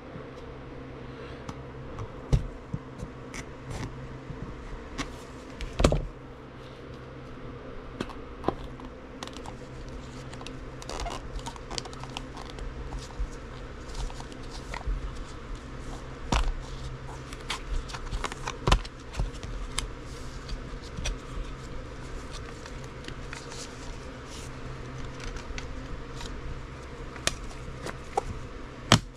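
Trading-card packaging being opened and handled: irregular scrapes, rustles and sharp clicks of cardboard and wrapper, with a few louder knocks, over a steady low hum.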